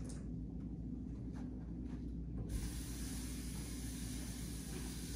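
A few faint knocks of a plastic bedpan being handled, then, about halfway through, a sink tap is turned on and water runs steadily into the sink.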